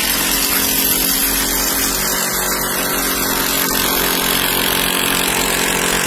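A power tool running steadily with a loud, even noise and a faint hum underneath.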